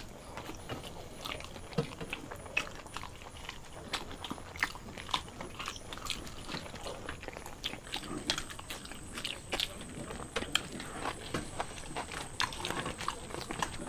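Close-up chewing of paratha and dum aloo eaten by hand: irregular wet mouth clicks and smacks, several a second.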